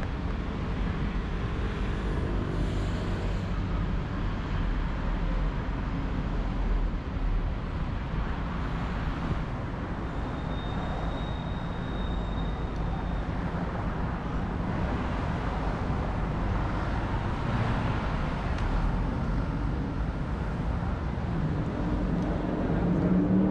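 Road traffic on a busy city street, cars and buses passing continuously, with a vehicle engine rising in pitch as it accelerates near the end.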